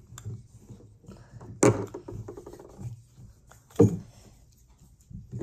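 Two sharp knocks of plastic Play-Doh toys against a wooden tabletop, about two seconds apart, with quieter rubbing and handling of dough and toys in between.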